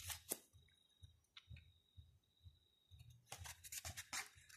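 Near silence with a few soft scratches, then a short burst of paper rustling about three seconds in as a page of a glossy album photobook is turned by hand.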